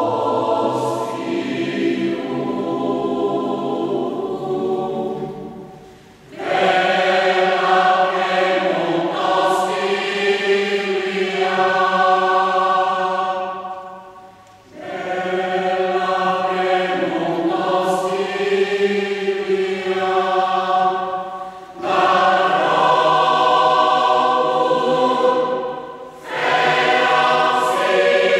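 Mixed choir of men's and women's voices singing in a cathedral, in long sustained phrases several seconds each, with four brief breaks between phrases.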